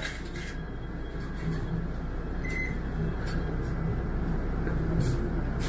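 Steady low rumble of a motor vehicle's engine, with a few faint clicks.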